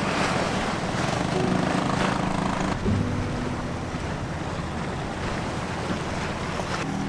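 Wind buffeting the microphone over the wash of choppy sea and swell against the rocks, with a faint low steady hum underneath.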